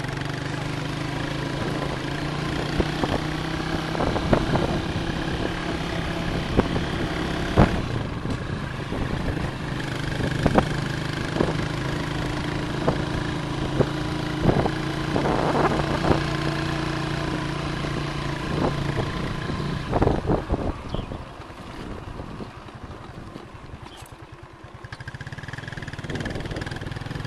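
Motorcycle engine running steadily under way, with frequent sharp knocks and rattles from the bike jolting over a rough road. About twenty seconds in the engine drops to a quieter, lower note, then picks up again near the end.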